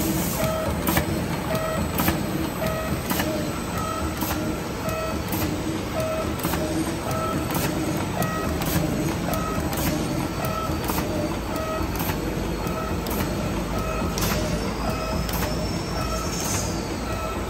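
Heat-shrink film arc-bottom sealing bag-making machine running: a steady mechanical hum with a sharp click about once a second as it cycles. A short electronic beep repeats over it, alternating between two pitches, about once or twice a second.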